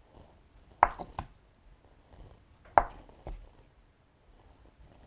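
Chef's knife slicing through a block of extra-firm tofu and knocking down onto a bamboo cutting board. There are two sharp knocks, one about a second in and one nearly three seconds in, each followed by a lighter tap.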